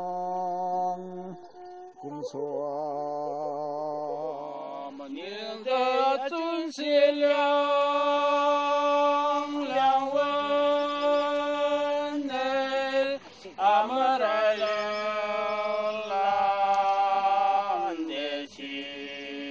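Chanted singing: long held notes that step between a few pitches with short slides between them. It gets louder and fuller from about five seconds in.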